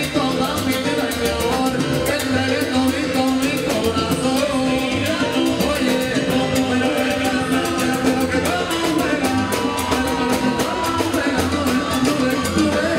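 Live salsa band playing over a steady beat, with horns, congas and drum kit.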